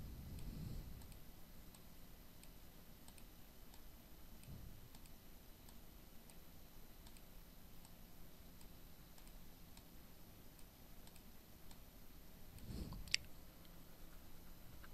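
Faint computer-mouse clicks in a quiet room, with faint ticks about once a second, a few soft low thumps, and one sharper click about thirteen seconds in.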